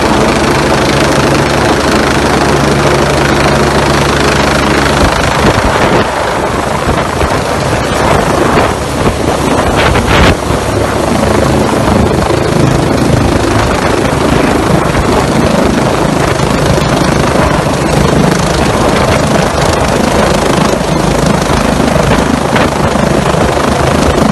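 Fire-and-rescue helicopter hovering low overhead, loud and steady, with its rotor and turbine running throughout. About six seconds in, the steady low rotor hum gives way to a rougher rush of noise as the helicopter's downwash blows across the microphone.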